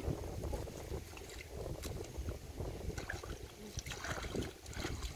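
Hands splashing and sloshing in a shallow muddy stream, with short splashes scattered over a steady low rumble.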